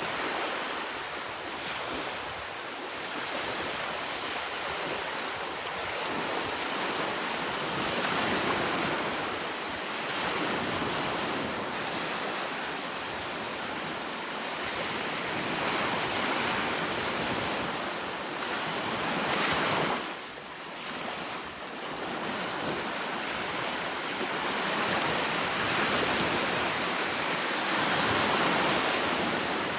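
Sea waves breaking and washing on the shore, an unbroken rush that swells and falls back every few seconds, dipping briefly about two-thirds of the way through.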